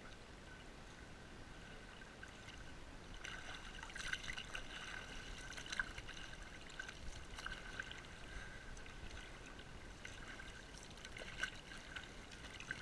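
Water trickling and lapping around a kayak, with a few light splashes from the paddle dipping in.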